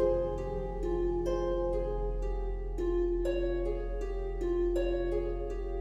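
Background music: a slow, repeating line of plucked notes over a low held bass tone.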